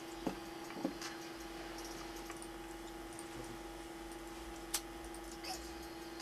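Quiet room tone: a faint steady electronic hum with a few soft clicks, one of them a little sharper near the end.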